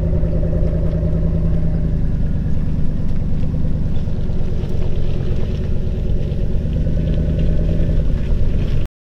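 A vehicle engine running steadily at an even pitch, loud and close. It cuts off abruptly near the end.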